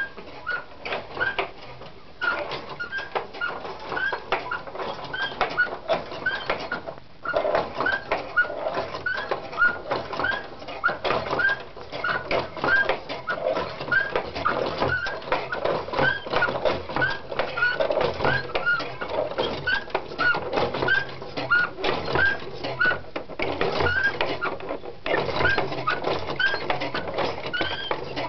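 Mechanical automaton sculpture running: a steady clatter of clicking cams, levers and moving figures, with a short rising squeak about twice a second. The clatter briefly thins out twice.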